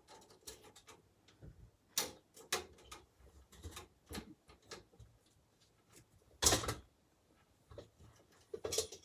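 Sheet-metal I/O shield being pressed into a computer case's rear opening: irregular clicks and metallic snaps as its tabs are pushed in, the loudest and longest about six and a half seconds in. The tabs are catching and springing back out, so the plate won't stay seated.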